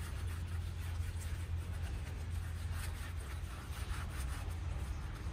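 Rag in a gloved hand rubbing a black coating onto the inside of a cement planter, a soft irregular scrubbing, over a steady low rumble.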